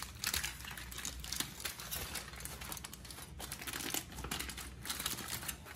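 Aluminium foil crinkling in irregular crackles as hands unwrap it from around a tamal.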